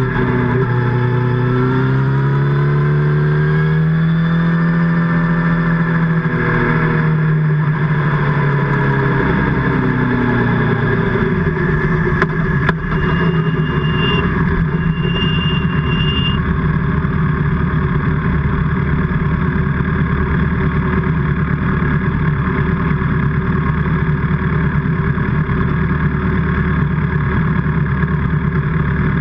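Motorcycle engine and exhaust running, its pitch rising and then falling over roughly the first ten seconds, then holding steady for the rest.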